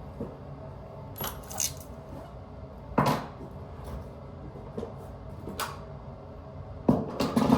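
Tools and hardware being handled and set down: a string of separate sharp clinks and knocks, the loudest about three seconds in and a quick cluster near the end, over a steady low hum.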